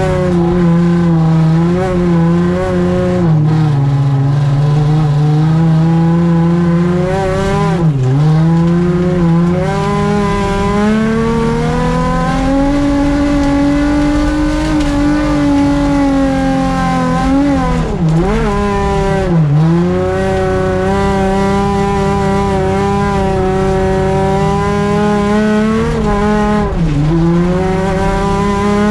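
Race car engine heard from inside the cabin, held at high revs under hard driving; its note drops sharply and climbs back about four times, near 8 s, twice around 18 to 20 s, and near 27 s.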